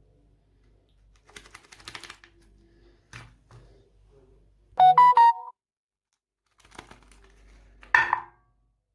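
A short, loud chime of three quick notes about five seconds in, with crackling rustles before it and a brief noisy burst near the end.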